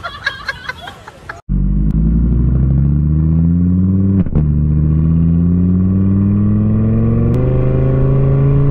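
Engine of a motor vehicle accelerating, a steady low drone that climbs slowly in pitch, drops back and climbs again twice, like shifting up through the gears. A short stretch of busy, noisy sound comes before it and cuts off about a second and a half in.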